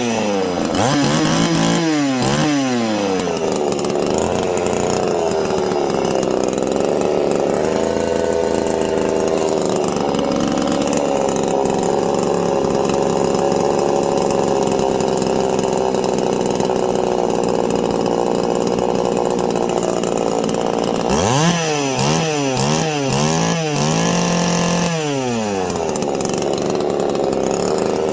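Ported Poulan 3400 two-stroke chainsaw running, its engine speed falling away over the first few seconds and then holding fairly steady. From about 21 s, several quick throttle blips send the revs up and down before it settles again.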